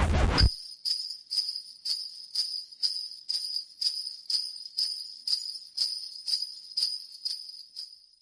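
Sleigh bells shaken in a steady rhythm, about two shakes a second, ringing on between shakes and slowly fading out near the end. A music track with a drum beat cuts off about half a second in.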